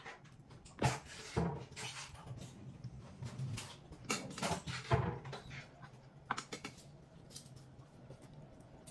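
Mealtime handling sounds: irregular light clicks and knocks of grilled food and utensils being handled on a table, over a steady low hum.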